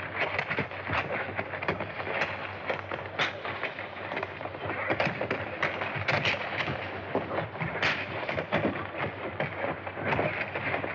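A long run of sharp bangs and cracks, irregular and closely spaced, some louder than others, over the hiss of an old film soundtrack.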